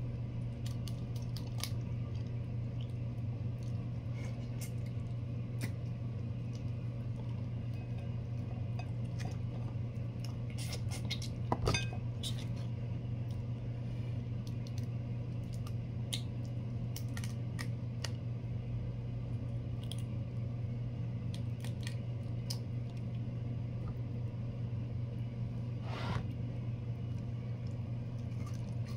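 Large cooked prawns being peeled by hand: a scattered series of small crackling clicks as the hard shells are pulled and snapped apart, with a louder snap about twelve seconds in and another near the end. A steady low hum lies under it throughout.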